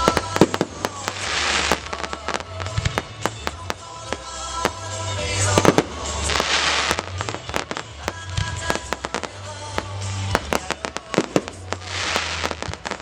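Fireworks display: many sharp bangs and pops, with bursts of crackling hiss about a second in, around six seconds and near the end, over music with a steady bass line.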